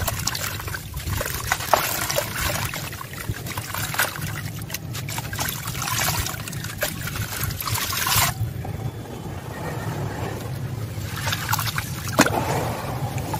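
Dry crumbly chunk being broken up by hand, its grit and crumbs trickling and splashing into a tub of water, with many small crunchy clicks. A little past halfway the crumbling eases, and near the end hands work in the muddy water.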